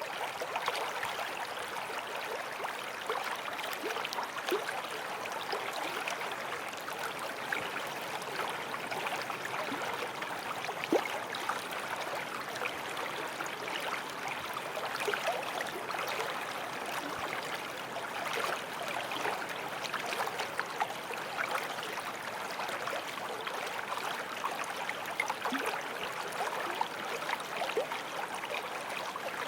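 A creek running steadily, with small splashes and gurgles through the flow.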